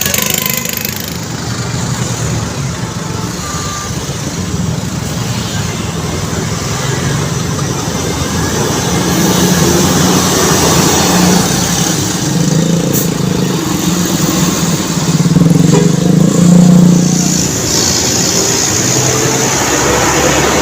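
Large vehicle engine rumbling with road traffic noise, growing louder about halfway through as a bus passes close by.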